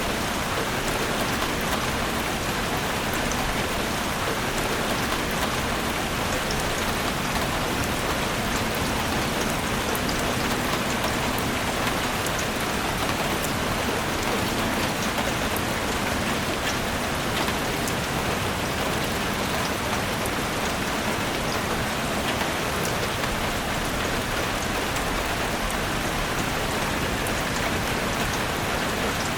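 Steady rain falling in a forest, a dense even hiss with many individual drops ticking on leaves and surfaces.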